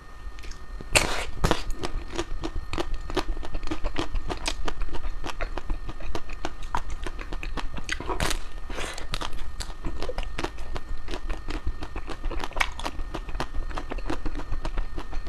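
Close-up chewing of crispy ice cream, a run of crunches and crackles, loudest about a second in and again around eight seconds.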